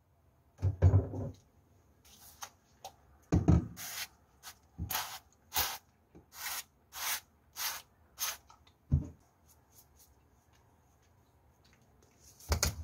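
Seasoning raw lamb chops on a plastic cutting board: a run of short, evenly spaced shaking or brushing strokes, with a few low knocks of the bottle or brush against the board and a louder rattle near the end.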